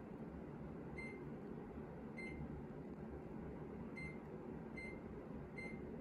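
Five short, high electronic beeps from a Mitsubishi Kirigamine air conditioner, each acknowledging a button press on its remote, over a steady low background hum.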